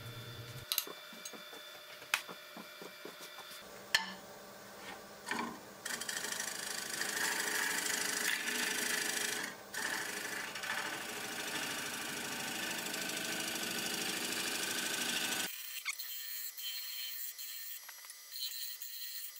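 Turning tool cutting the bottom of a spinning ambrosia maple bowl blank on a wood lathe. A few sharp ticks as the tool touches the wood, then a steady cutting sound of shavings peeling off for about ten seconds that stops abruptly, leaving only light scraping and ticks.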